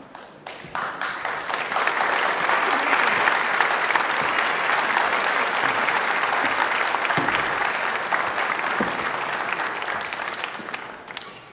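Audience applauding, swelling over the first couple of seconds, holding steady, then fading out near the end.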